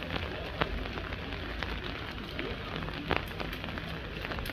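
Steady heavy rain falling, with scattered sharp drop hits close by.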